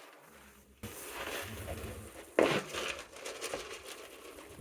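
Rustling and crinkling handling noise over a low steady hum, with one sharp knock about two and a half seconds in.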